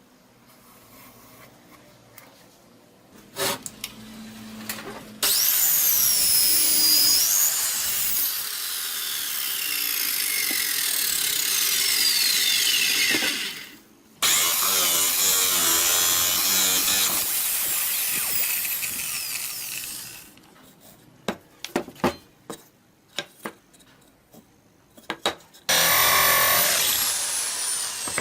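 A power tool working wood, running in two long stretches of about eight and six seconds and again briefly near the end, its whine sliding down and up in pitch. The quieter gaps hold scattered taps and knocks.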